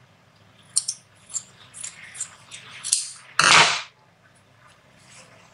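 Scissors snipping a small marking notch at the edge of a cotton fabric flap: a few light clicks and snips, then a brief louder rustle of the fabric being handled about three and a half seconds in.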